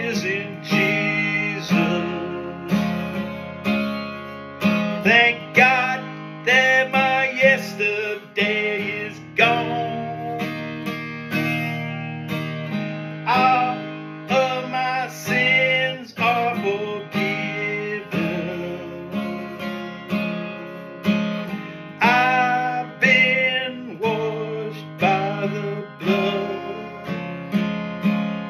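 Steel-string acoustic guitar strummed in a steady rhythm of chords, with a man's voice singing along in stretches.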